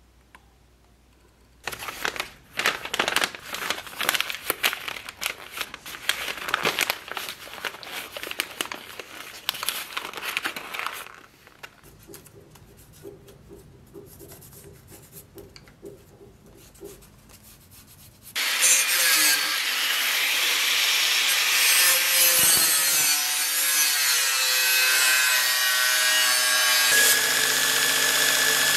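Irregular scraping strokes of hand work on sheet steel for about nine seconds. After a quieter pause, an angle grinder starts about two-thirds of the way in and cuts through the sheet steel, a loud steady whine and rasp.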